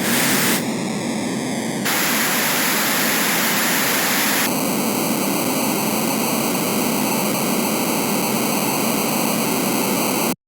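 Harsh noise wall: a dense, loud wall of static-like electronic noise that abruptly changes texture a few times in the first few seconds, then holds steady and cuts off suddenly to silence near the end.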